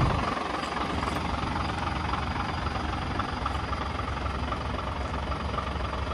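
Nissan UD GE13-TB turbo-diesel straight-six idling steadily with a low rumble.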